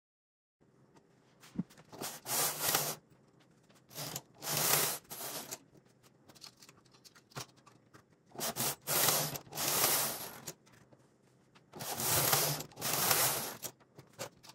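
Singer 328 knitting machine carriage pushed back and forth across the needle bed, knitting rows. Each pass is a second or two of mechanical scraping and rattling, with about four main passes and short pauses between them.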